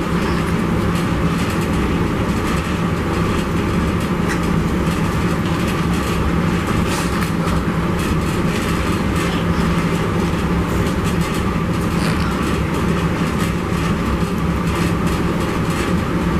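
Steady rumbling drone with a constant low hum, machine-like and as loud as the speech around it, with a few faint rustles over it.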